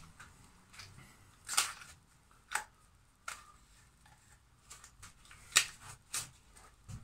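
Caulking gun and sealant cartridge being handled: a handful of short, sharp clicks and clacks at irregular intervals, the loudest about five and a half seconds in, as the cartridge is fitted and the gun's plunger and trigger are worked.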